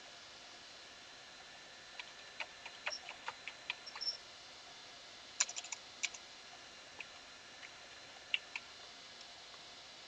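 Computer keyboard typing: a quick run of keystrokes about two seconds in, another short cluster of clicks a little later, then a few scattered clicks over a faint steady hiss.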